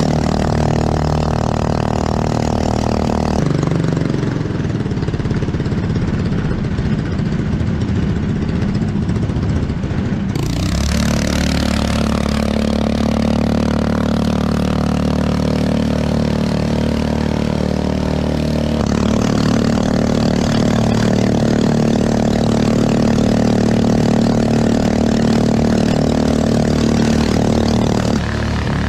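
A 212cc Honda-clone single-cylinder four-stroke engine runs loud and steady, driving a homemade jet-drive unit. It is struggling, pushing the boat only slowly. Its tone changes abruptly three times.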